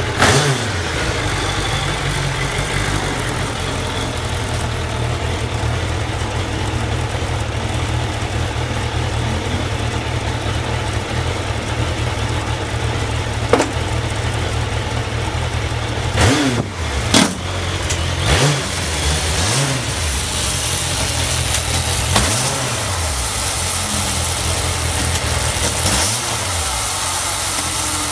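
Suzuki GSF1200S inline-four engine idling steadily. In the second half it is blipped several times, the revs rising briefly and dropping back to idle, with a few sharp clicks. The idle is stable, with no abnormal noise, as the seller claims.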